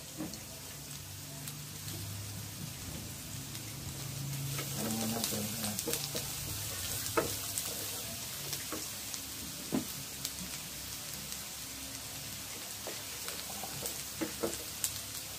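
Chopped garlic sizzling in melted butter in a nonstick frying pan, stirred with a wooden spatula that scrapes and taps against the pan now and then.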